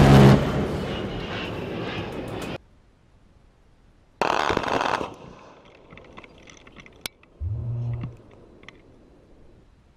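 A-10's GAU-8 30 mm seven-barrel Gatling cannon firing short bursts, each a low buzzing tone. The first and loudest burst comes at the very start and trails into aircraft and impact noise that cuts off about two and a half seconds in. A loud burst of noise follows about four seconds in, and a second, fainter gun burst of under a second comes near the eight-second mark.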